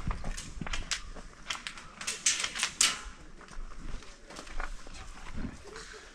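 Scattered sharp clicks and cracks of airsoft gunfire, thick and loud in the first three seconds, then thinning out to occasional snaps.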